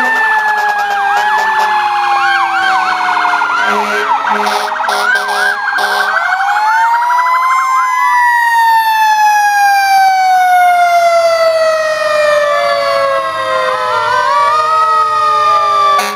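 Several fire truck sirens sounding at once. A fast, repeating warble runs through roughly the first six seconds, and a wailing tone rises a little before eight seconds in, then falls slowly and steadily, with other falling siren tones overlapping it.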